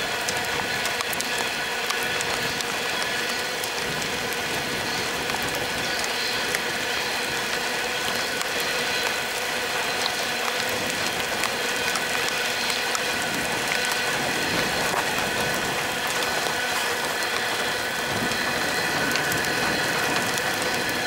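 Loaded coal hopper wagons rolling past: a steady hiss of steel wheels on rail, with several held squealing tones and scattered light ticks.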